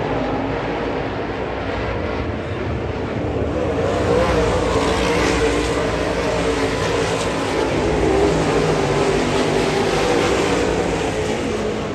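Dirt late model race car engines running at speed on the track, getting louder from about four seconds in.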